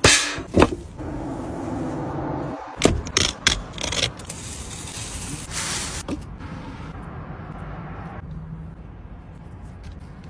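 Several sharp knocks and plastic crackles as a clear plastic lid is handled and taken off a metal food tray, the loudest about half a second in and around three seconds in. Under them runs a steady low hum inside the car.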